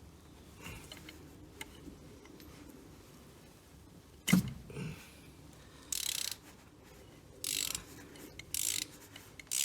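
Ratchet wrench on an extension bar and 14mm thin-wall spark plug socket, unscrewing a spark plug: a sharp knock about four seconds in, then short bursts of ratchet clicking every second or so as the handle is swung back between turns, with the plug coming out nicely.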